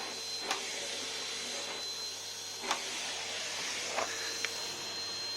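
Vacuum cleaner running steadily with a high whine, with a few sharp knocks over it.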